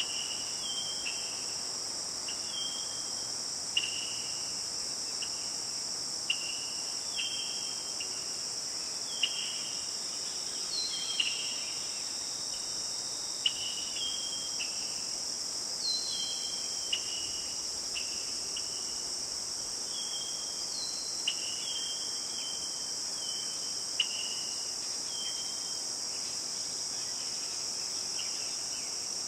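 Steady high-pitched chorus of insects such as crickets, with short descending chirps from another animal repeating about once a second and a few sharp clicks.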